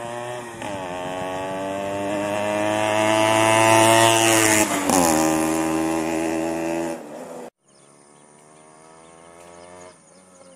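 Modified Suzuki Max 100's two-stroke single-cylinder engine accelerating hard as the bike approaches, its pitch climbing, falling briefly at a gear change about half a second in and again about five seconds in, then climbing once more; it is loudest about four seconds in. The sound cuts off abruptly past the halfway point, after which the bike's engine is heard only faintly.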